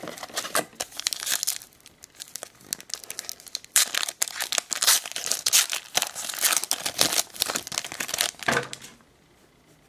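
Wrapper of a 2007 Upper Deck SP Rookie Edition baseball card pack crinkling and tearing as a pack is taken from the box and opened by hand. The crackling is densest through the middle and dies away near the end.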